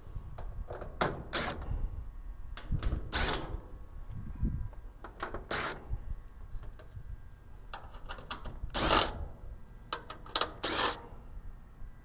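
Screws being worked out of a washing machine's sheet-metal casing with a quarter-inch driver: scattered short scrapes and clicks every second or two, over low handling rumble.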